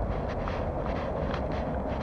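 Footsteps of a person walking, short sharp steps several times a second, over a steady low rumble and hiss of outdoor background noise.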